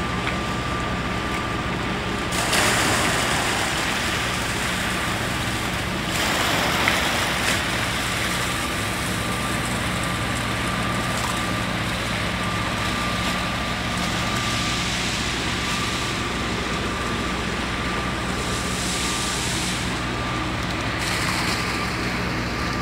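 Steady drone of heavy machinery with a thin high whine over it, broken about two seconds in and again about six seconds in by a louder rush of hiss.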